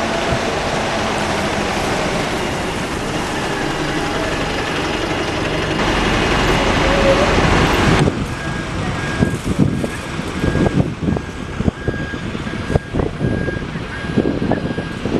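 A single-deck bus engine running as the bus pulls away. After a sudden change about halfway through, an electric Wright Kite single-deck bus approaches with a thin, steady high whine, while wind buffets the microphone in gusts.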